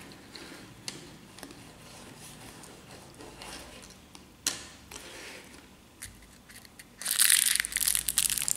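Faint clicks and scrapes of small plastic toys and stickers being handled on a tabletop. About seven seconds in, loud crinkling of a small clear plastic candy packet.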